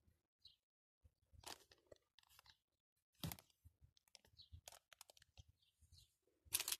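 Faint, scattered rustling and crackling handling noises, with a louder crackle about three seconds in and another near the end.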